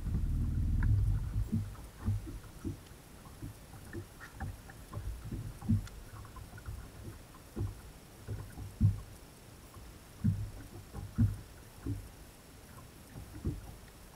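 Irregular low thumps and knocks on a bass boat's front deck as the angler shifts and moves while fishing. A louder rumbling bump fills the first second and a half.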